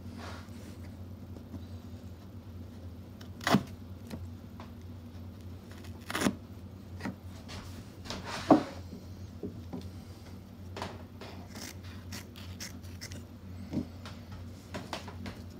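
A few separate sharp clicks and knocks, the loudest about two-thirds of the way through, over a steady low hum.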